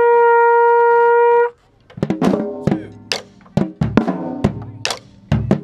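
A marching brass instrument holds one long, swelling note that stops about a second and a half in. After a short gap, marching drums play a fast pattern of sharp strokes.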